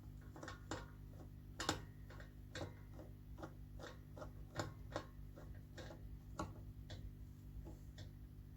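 A run of sharp, irregular clicks and taps, roughly two a second, the loudest about one and a half seconds in, over a steady low electrical hum.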